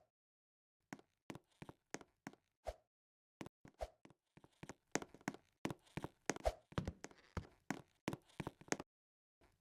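A run of short, sharp taps and knocks at uneven spacing, a few at first and then many close together from about halfway through.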